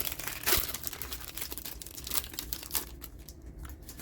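Booster pack wrapper crinkling and rustling as it is handled, with short clicks from handling the plastic cards; the sound thins out near the end.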